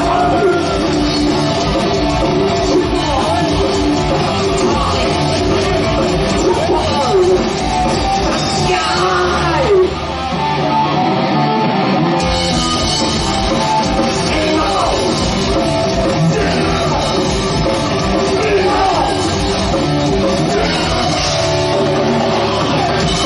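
Heavy metal band playing live, with distorted electric guitars and drums. About ten seconds in, the low end of bass and drums drops out for about two seconds, then the full band comes back in.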